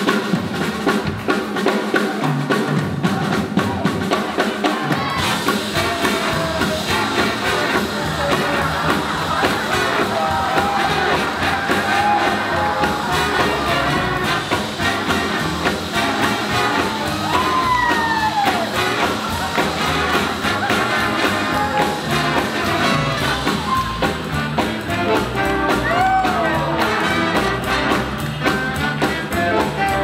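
Live swing jazz band playing an up-tempo tune with drum kit and brass, a steady driving beat throughout, with a couple of falling horn-like pitch slides about eighteen seconds in and again near the end.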